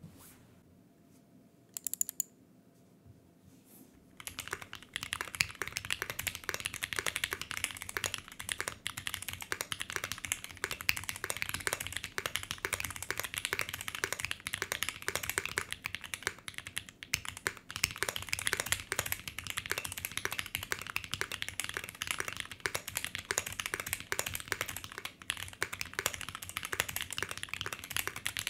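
Fast typing on a 60% Polaris mechanical keyboard with an aluminium plate, ePBT keycaps and foam installed, its keys fitted with a mix of about twenty different switch types. A couple of sharp clicks come about two seconds in, then a rapid, continuous stream of keystrokes from about four seconds in.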